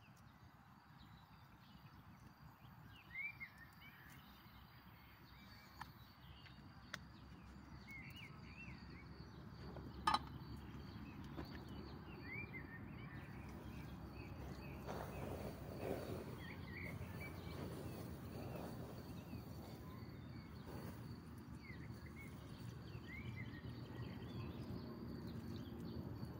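Quiet open-air ambience. A bird gives short chirps every few seconds. A few sharp clicks come from camp utensils being handled, the loudest about ten seconds in, and a low rumbling noise grows louder through the second half.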